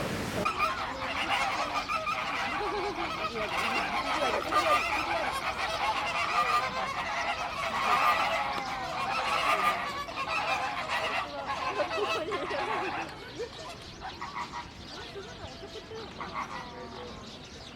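A flock of birds giving many overlapping goose-like honking calls, which die down about two-thirds of the way through.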